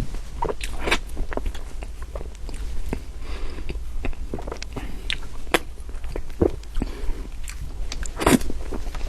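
Close-miked chewing of soft cream cake: soft, chewy mouth sounds with irregular wet clicks and smacks, over a steady low hum.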